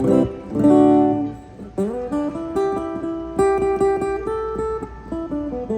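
Acoustic guitar being tried out during a sound check. A couple of strummed chords are followed by single plucked notes, with a slide up about two seconds in.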